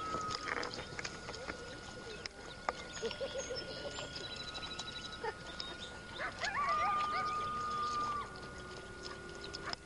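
Coyotes howling: a long, steady, high howl that ends about half a second in, a few short wavering calls around three seconds, then a second long howl at about six and a half seconds that opens with several voices gliding over one another.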